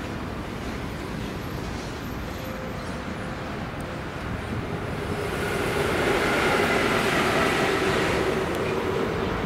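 Bombardier TRAXX class 186 electric locomotive running light past, its wheels on the rails and a steady whine growing louder as it nears, loudest about six seconds in, over a constant low rumble.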